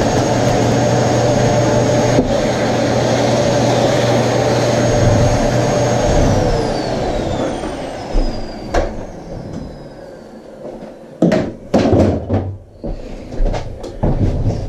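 Vacuum cleaner running steadily, cleaning up aluminium drill shavings; about six seconds in it is switched off and the motor winds down with a falling whine. Near the end come a few knocks and clatters as it is put away.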